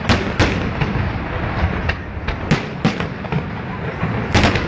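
Fireworks bursting overhead: an irregular run of sharp bangs over a steady rumble. Two come close together at the start, lighter ones follow, and the loudest cluster is near the end. Heard through a mobile phone's small microphone.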